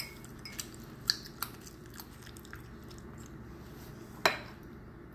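Quiet chewing of balut, with scattered light clicks of a metal spoon against a porcelain cup and one sharper click about four seconds in.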